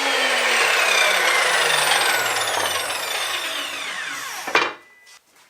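Miter saw spinning down after a cut: a whine that falls steadily in pitch and fades over about four and a half seconds, with a short knock near the end.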